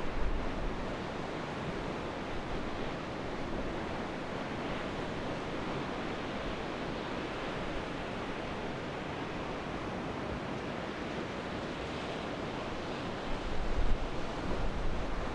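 Steady rush of wind and churning sea water, with gusts buffeting the microphone in low rumbling bumps near the end.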